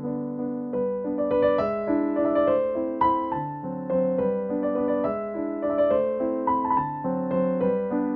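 Background piano music, a steady flow of gentle notes and chords.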